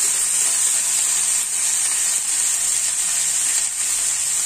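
Freshly washed, wet bathua leaves sizzling in hot oil in a nonstick frying pan, a steady hiss as the water on the leaves boils off into steam.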